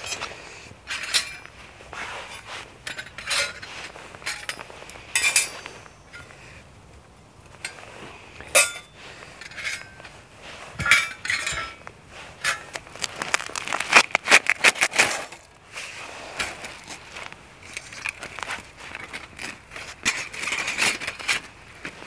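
Thin metal plates of a Flexfire folding hobo stove clinking and clattering against each other as the stove is taken apart and the plates are stacked. The clinks come singly at first, then in a quick run a little past halfway and again near the end.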